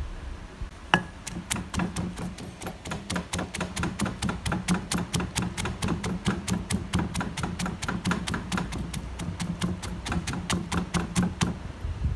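Wooden pestle pounding coriander root, bird's eye chillies and garlic in an earthenware mortar: an even run of dull strokes, about four a second. It starts about a second in and stops shortly before the end.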